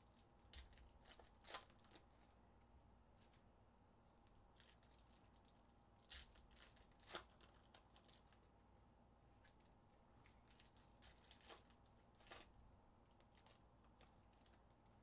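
Faint crinkling and tearing of foil trading-card pack wrappers being ripped open by hand. The crackles come in a few short spells with quiet gaps between.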